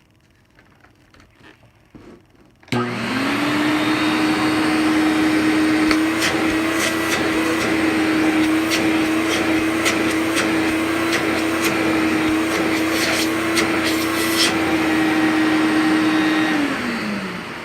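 Eureka Whirlwind Power System upright vacuum switched on a few seconds in: its motor spins up quickly to a steady high hum while its suction is tried out, with scattered sharp clicks on top. It is switched off near the end and the hum falls away. The owner believes the motor is a dual-stage Lamb motor.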